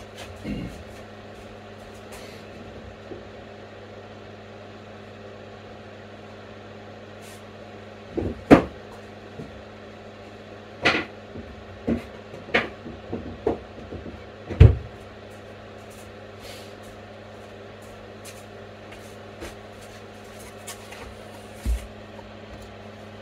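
A 120 mm, 230-volt mains fan in a fume and dust extractor running with a steady hum. A string of sharp knocks and clacks falls between about eight and fifteen seconds in, with one more near the end.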